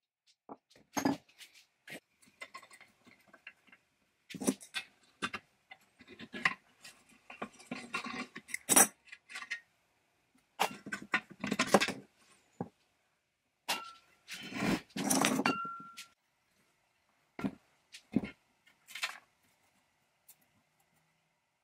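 Irregular metal clinks, knocks and scraping as a wrench works the rusty bolts of a cast iron forge and loose metal parts and a pipe leg are handled and set down on a wooden bench.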